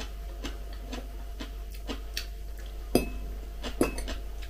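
A metal fork clinks against a glass bowl twice, with a short ring, about three seconds in and again just before four seconds. Before that come faint soft clicks of eating at the table.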